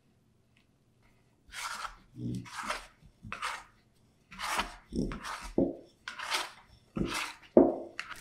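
Hands mixing shaggy sourdough dough of flour, water and leaven in a glass bowl: about ten separate strokes, a little over one a second, starting about a second and a half in, some with a low thud.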